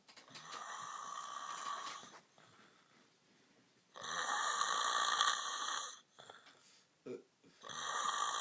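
A man snoring in a passed-out sleep after a night of heavy drinking: three long snores, each about two seconds, one every four seconds or so.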